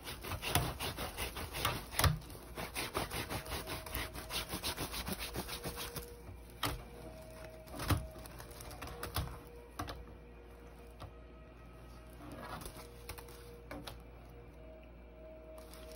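Rapid, hard rubbing strokes over a woven wild grape vine (yamabudo) basket bag, working Japanese wood wax into the weave. The strokes stop about six seconds in, leaving a few knocks and faint scratches.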